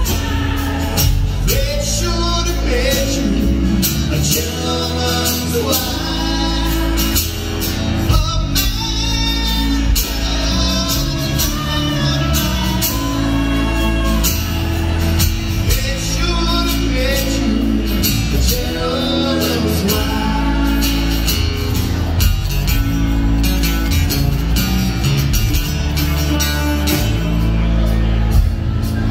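Live band playing a song with singing over acoustic guitar, electric guitar, bass guitar and drum kit.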